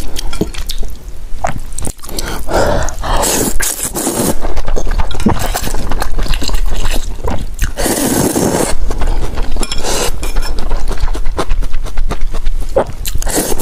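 Close-miked slurping of hot and sour glass noodles out of a bowl of soup, with wet chewing between. There are two longer slurps, about three seconds in and about eight seconds in.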